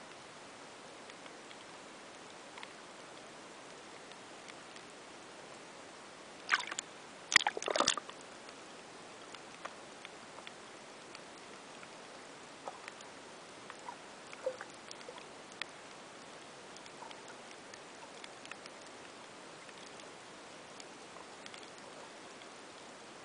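Underwater ambience picked up by a camera below the surface: a steady hiss with faint, scattered clicks. About six to eight seconds in there is a brief burst of much louder clicks and knocks.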